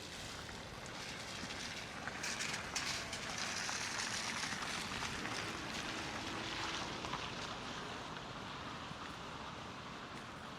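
A vehicle passing on the snow-cleared street: a hiss of tyres swells about two seconds in, then fades away slowly.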